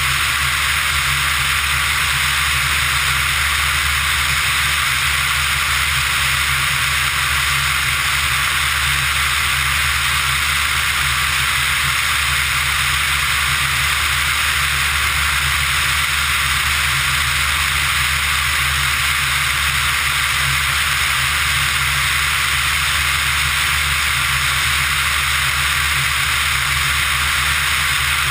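Pipistrel Virus ultralight aircraft in level cruise, heard from a camera mounted on the outside of the airframe: a loud, steady rush of wind over the camera with the even low drone of the engine and propeller beneath it.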